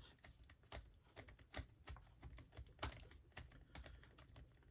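Faint, irregular small clicks and taps, several a second, of a blue wheel nut being handled and threaded by hand onto an RC car's wheel axle.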